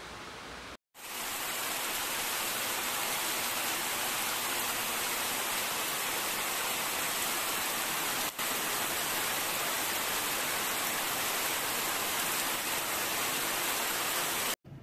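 Heavy rain pouring down in a steady, even hiss. It starts suddenly about a second in and stops abruptly just before the end.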